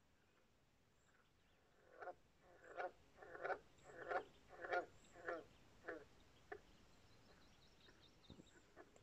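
A frog croaking: a run of about eight short, rough croaks a little over half a second apart, growing louder and then fading away.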